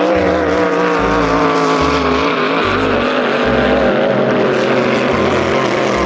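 Speedboat motor sound effect: a steady, droning outboard-type engine whose pitch wavers slightly, over an evenly pulsing low bass.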